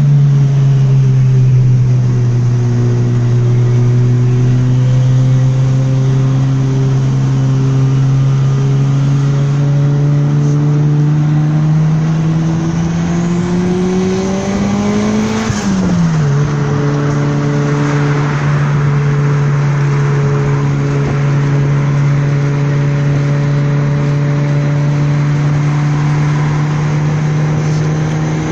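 Car engine running loud and steady, its pitch climbing slowly for about fifteen seconds, then dropping sharply and holding steady again.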